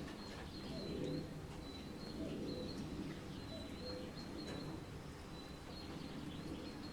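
Birds singing in a steady background of rain. Thin high notes repeat every second or so, with lower repeated calls beneath them.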